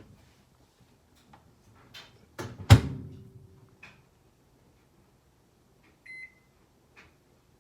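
Microwave oven being loaded and shut: a few light knocks as the dish goes in, then the door closing with a loud bang. Near the end a single short keypad beep, followed by a small click.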